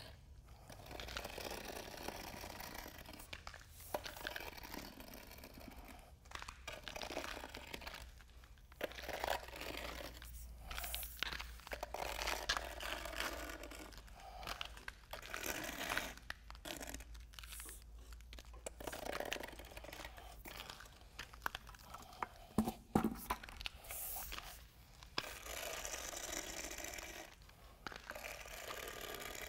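Gauge rake pushing and spreading wet, self-levelling MMA resin over a concrete floor: irregular scraping and swishing strokes with occasional crunching clicks.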